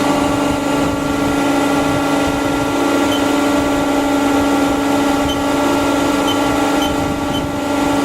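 2004 Haas SL-10T CNC lathe spindle running steadily at 1500 RPM, a constant hum with a strong single tone.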